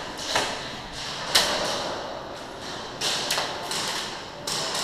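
Scattered airsoft gunfire: about five sharp snaps spread over a few seconds, the loudest about a second and a half in.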